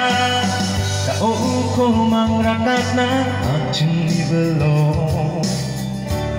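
A man singing a song into a microphone, amplified through loudspeakers over instrumental backing music with a steady bass line.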